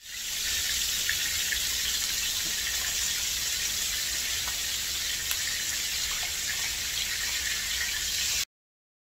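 Snakehead fillets frying in butter and olive oil in a frying pan: a steady sizzle with small crackles, cutting off abruptly near the end.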